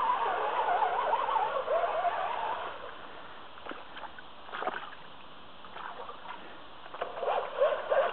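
Electric motor of a Traxxas Slash 4x4 RC truck whining, its pitch rising and falling with the throttle as it drives through shallow creek water. The whine fades for a few seconds in the middle, leaving a few faint splashes and ticks, and comes back near the end.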